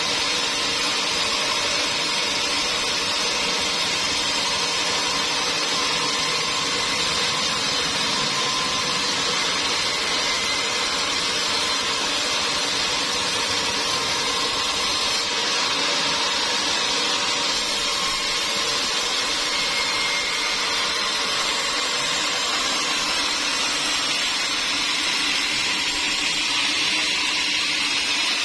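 Sawmill machinery running steadily without a break, a dense even noise with a faint steady hum in it.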